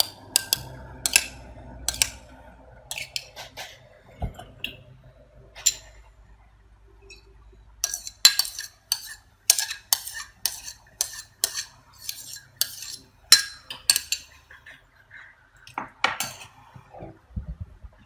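Metal spoon clinking and scraping against a ceramic bowl while beating eggs into melted butter. The clinks come in irregular runs and are most frequent in the second half.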